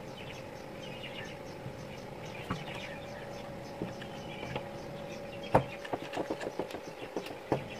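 Old electric drill being handled on the work surface: a string of sharp clicks and knocks in the second half, the loudest about five and a half seconds in. Underneath are a steady hum and faint chirping.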